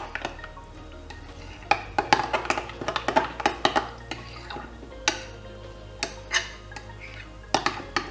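A metal teaspoon stirring thick Greek yogurt in a glass bowl, clinking against the glass in runs of quick taps with short pauses between them.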